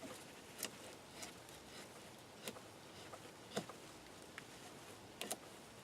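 Bark River Mini Bushcrafter knife blade shaving wood in short, separate strokes, about five of them spaced unevenly, faint.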